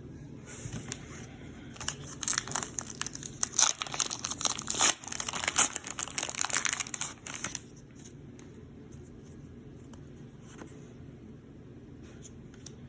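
Pokémon card booster pack packaging torn open and crinkled, a dense run of crackling and tearing for about five seconds that stops abruptly, followed by only faint room noise.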